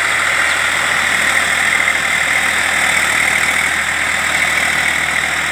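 Farm tractor's diesel engine running steadily as it drives a rotary tiller through wet mud.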